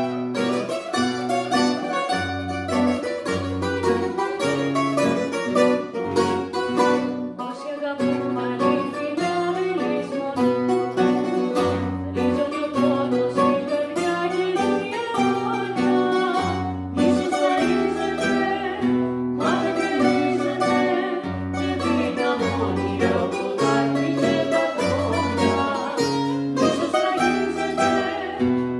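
Acoustic guitar and two bouzoukis playing together: bright plucked bouzouki lines over guitar chords and a stepping bass line, with no pauses.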